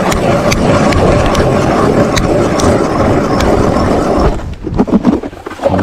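Ice auger drilling a hole through thick lake ice, a steady churning with regular clicks about twice a second, stopping about four seconds in. A few knocks follow.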